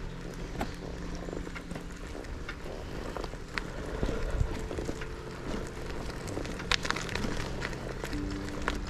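Motorbike engine running at low revs, its pitch stepping up and down a few times, with scattered crackles and clicks over it.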